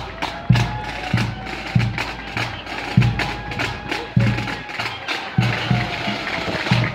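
A pipe band's drum corps beating a marching cadence: a bass drum hit about every 0.6 seconds, with sharp snare-drum strokes and clicks between.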